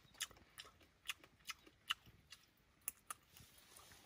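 Faint, irregular crunching clicks of someone chewing small rat bones and meat, about two a second.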